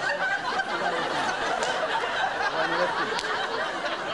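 A man moaning and groaning in pain, with drawn-out wordless vocal sounds like someone sick with fever.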